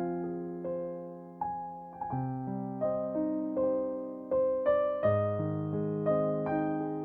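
Slow, calm solo piano music: single notes and soft chords struck and left to ring out and fade.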